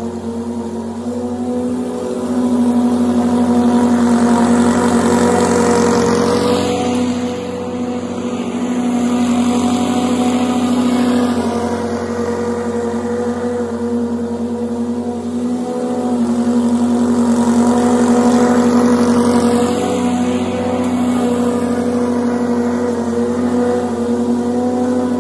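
Toro TurfMaster walk-behind lawn mower running steadily at full throttle while cutting grass. Its engine and blade hum grows louder and softer as the mower is pushed back and forth across the lawn.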